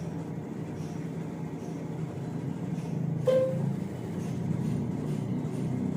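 Samsung Bespoke AI washer-dryer's touchscreen giving one short beep about three seconds in as a button is tapped, over a steady low background hum.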